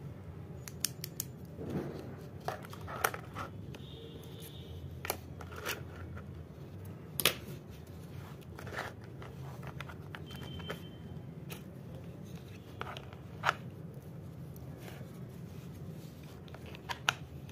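Scattered sharp plastic clicks and taps of stationery being handled: pencils and small pieces set into and taken out of a plastic geometry box, over a steady low hum.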